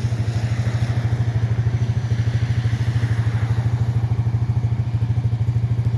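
An engine idling steadily, with a low, even pulse.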